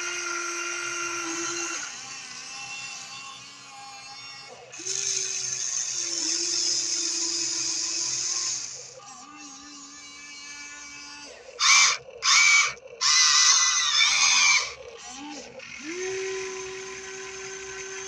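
Small electric gear motors of a Huina RC excavator whining as its functions run, stopping and restarting with the pitch shifting from one movement to the next. About two thirds of the way through come three louder, harsher bursts, the loudest part.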